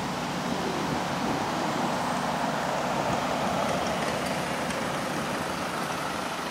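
Heavy-haulage truck carrying a Komatsu mining dump truck chassis approaching on the highway: its diesel engine drones steadily and its tyre noise builds, loudest about midway, while an escort vehicle drives by.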